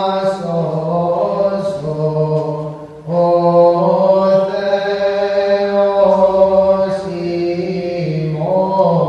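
Byzantine chant: voices singing slow, long-held notes of a Greek Orthodox Vespers hymn, with one phrase ending and a new one starting about three seconds in.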